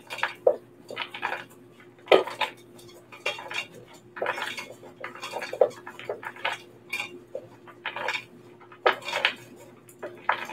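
Frozen cherries clattering and knocking against a metal mixing bowl as they are tossed by hand to coat them in cornstarch, in an uneven run of clicks and knocks.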